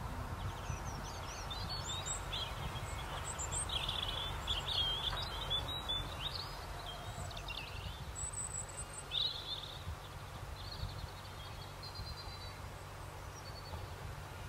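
Outdoor night ambience: a steady low rumble under scattered short, high bird chirps and calls, busiest in the first two-thirds and thinning out towards the end.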